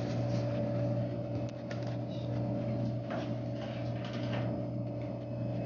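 Steady low electrical hum of room background, with a few faint short rustles of handling about three to four and a half seconds in.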